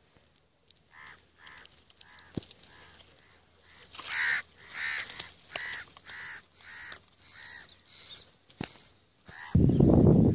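A crow cawing over and over, one call a little under every half-second to second, loudest about four seconds in. Near the end a sudden loud low rumbling noise takes over.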